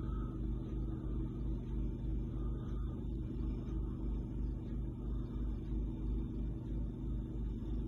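Snowblower engine running steadily with an even low hum and a regular pulse, clearing deep snow.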